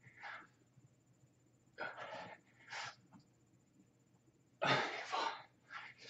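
A man's heavy, forceful breathing under exertion from a long set of squats: short huffing breaths, mostly in pairs, a few seconds apart.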